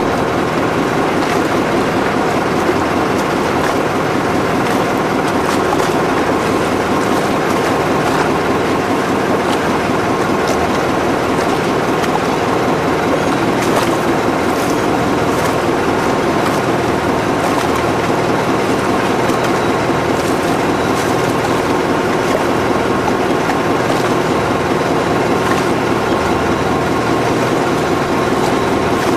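River boat's engine running steadily under way, heard on board as a constant drone with a rushing noise over it.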